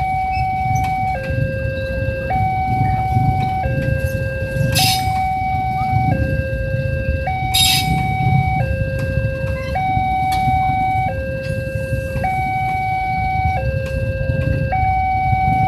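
Railway level-crossing warning alarm sounding, two alternating tones, high then low, each held about a second and a quarter. A steady low rumble runs underneath, with two brief hissing bursts about five and eight seconds in.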